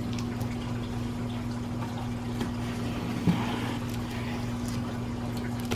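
Steady low electrical hum under faint rustling and handling of a cardboard box being opened, with a light knock about three seconds in and a sharp click at the end.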